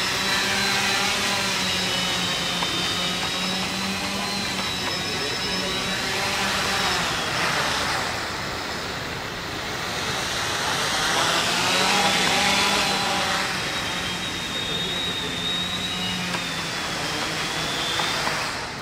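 Four small electric motors and propellers of a homemade quadcopter drone whirring with a high-pitched whine, the pitch wavering and sweeping up and down as the throttle changes.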